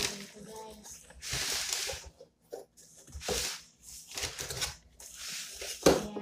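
Cardboard box being opened by hand: the flaps and a cardboard insert rustle and scrape in several separate strokes. A sharp knock near the end is the loudest sound.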